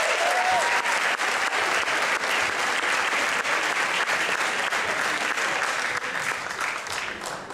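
Audience applauding steadily, with the clapping dying away near the end.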